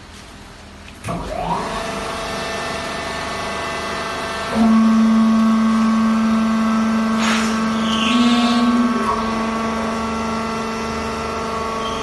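Vertical hydraulic baler's electric motor and hydraulic pump starting about a second in with a rising whine, then running with a steady hum. About four and a half seconds in, a louder low drone sets in and holds.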